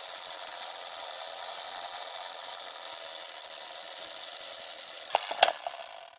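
Vintage film projector sound effect: steady running rattle and crackle under the countdown leader, with a couple of loud sharp clicks about five seconds in, then it cuts off.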